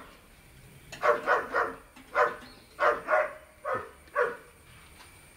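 A dog barking repeatedly: about eight short barks in quick groups of two or three.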